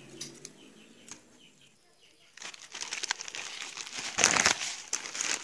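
Plastic courier mailer bag crinkling as it is handled and opened, starting about two seconds in and loudest near the end.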